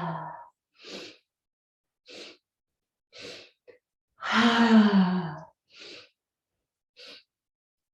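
Breath of joy yoga breathing: three short, sharp inhales about a second apart, then a long, loud sigh on the exhale that falls in pitch, and the next round of sharp inhales begins near the end.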